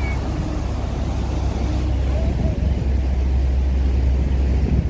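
Steady low rumble and rushing noise of a lake passenger boat under way: its engine running and its wake churning.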